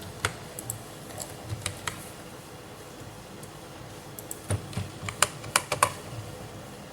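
Computer keyboard clicking in short, irregular key presses, as lines of code are copied and pasted. There are a few scattered taps in the first two seconds, then a quicker run of clicks from about four and a half to six seconds in.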